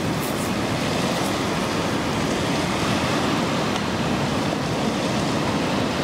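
Steady, even rush of running water.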